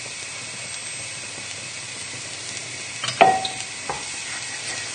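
Chopped shallots sizzling gently in a little oil in a non-stick pan, a steady hiss. About three seconds in, a wooden spoon starts stirring them and knocks against the pan a few times; the first knock is the loudest and rings briefly.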